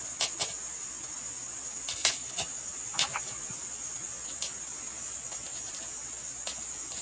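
Firewood burning in a wood stove, crackling with about eight sharp pops scattered over several seconds, over a steady high-pitched insect drone.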